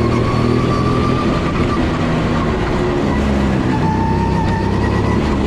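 Go-kart engine running under way, loud and continuous, its pitch shifting up and down as the kart speeds up and slows.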